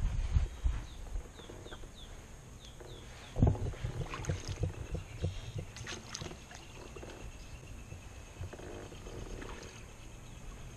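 Scattered knocks and clicks from a pedal kayak's hull and fittings as it moves through calm water, with one louder thump about three and a half seconds in. Between about one and three seconds in, a bird gives a quick run of short, falling chirps.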